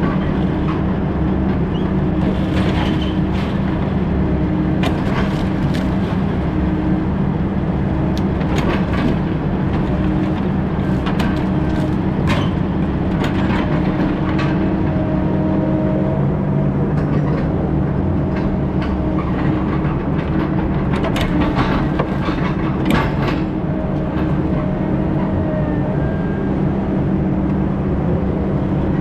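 Diesel engine of heavy logging machinery running steadily, with scattered clanks and knocks from the working machine.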